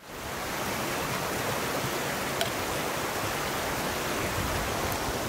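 Shallow stream running over rocks, a steady rush of water that comes in suddenly at the start.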